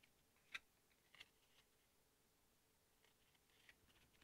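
Near silence: room tone with a few faint short clicks, the clearest about half a second in, a pair around a second in and one more near the end.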